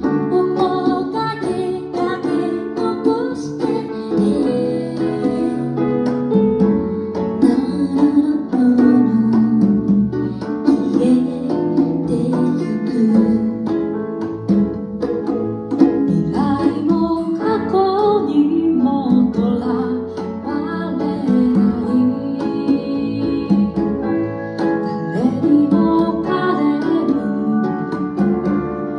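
Live acoustic band playing a song: a woman sings over acoustic guitar, keyboards and congas.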